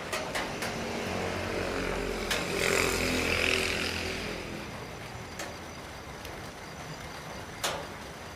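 A motor vehicle passes in the background, its engine swelling and fading about two to four seconds in, over a steady hiss of rain. A few sharp taps, such as drips, land at scattered moments.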